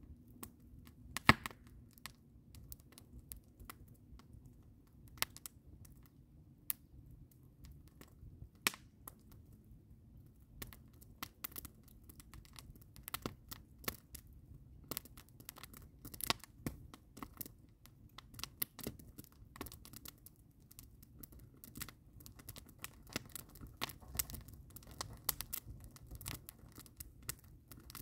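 Campfire of split logs and green conifer boughs crackling and popping. The pops are scattered at first, with one loud pop about a second in, then grow denser through the second half as the smoking boughs catch and flames rise.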